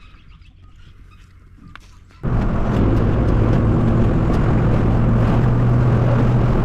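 A vehicle driving, with a steady engine hum and road noise that start abruptly about two seconds in, after a quieter stretch with a few faint clicks.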